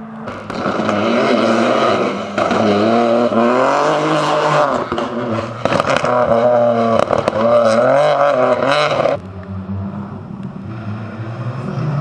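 Rally car engines at full throttle, the pitch climbing and dropping back with each gear change, several cars in turn joined by abrupt cuts. The loudest stretch runs from about half a second to about nine seconds in, then a quieter, lower engine takes over.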